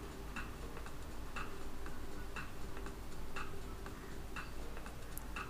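Clock ticking steadily, about two ticks a second, alternating loud and soft ticks.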